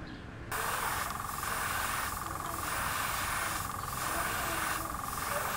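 Airbrush spraying paint onto a small wooden minnow lure: a steady hiss of compressed air that starts suddenly about half a second in and eases briefly about once a second.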